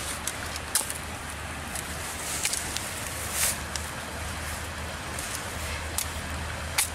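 Sawback teeth on the spine of a machete rasping and catching against a thin green branch in irregular scratchy strokes, with the sharpest scrapes about three quarters of a second, two and a half seconds and three and a half seconds in, over a steady low rumble.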